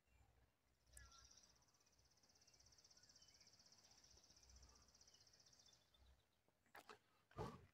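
A faint, high insect trill with a fast pulse starts about a second in and stops a little before six seconds. A few short knocks follow near the end, the loudest just before the end.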